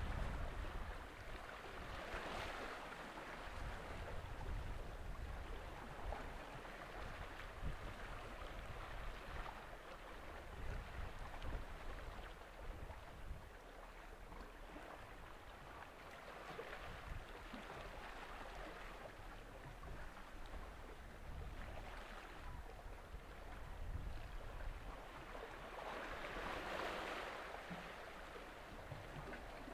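Waterside ambience of waves washing and wind on the microphone: a steady hiss that swells and fades every few seconds, with a gusty low rumble underneath. There is no clear engine note from the passing frigate.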